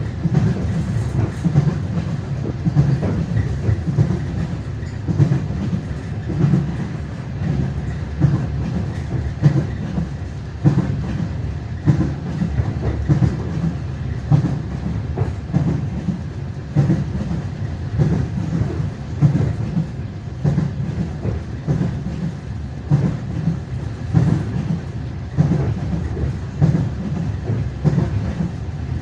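Passenger train wheels clattering over the rail joints: a steady clickety-clack of repeated knocks over the continuous rumble of the moving train.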